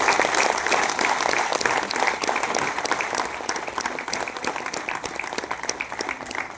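Audience applauding. It starts loud and dense, then thins out gradually.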